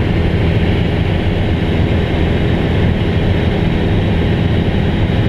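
Light airplane's piston engine and propeller running steadily in flight, heard from inside the cockpit as a constant drone.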